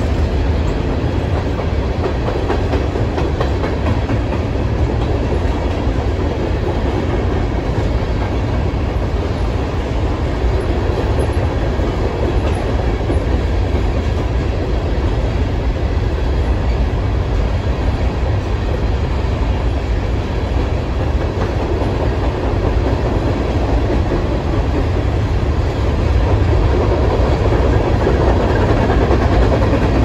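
Covered hopper cars of a freight train rolling across a steel truss bridge: a steady, low rumble with the clatter of wheels over the rail joints.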